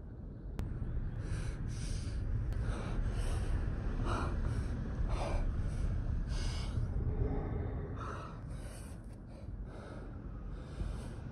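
A young man panting hard from scrambling up a steep sand dune, quick breaths in and out about two a second. The breaths thin out and soften after about seven seconds. A steady low rumble runs underneath.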